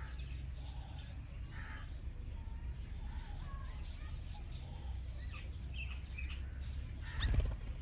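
Several wild birds chirping and calling in short notes, some gliding up or down in pitch, over a steady low rumble. A brief, louder harsh sound comes near the end.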